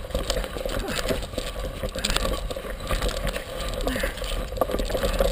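2011 Torker DX mountain unicycle rolling fast down a rough dirt trail: its knobby tyre rumbles over dirt and rocks, and the frame and camera mount rattle with many irregular knocks and clicks from the bumps.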